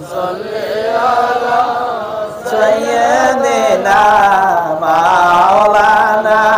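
A man chanting a Sufi devotional line in long, drawn-out notes that waver in pitch, with a steady low tone underneath.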